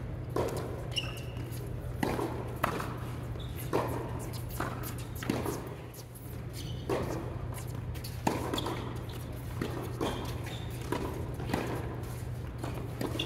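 Tennis rally on an indoor hard court: racquet strikes and ball bounces, one about every second, each echoing in the hall. A steady low hum runs underneath.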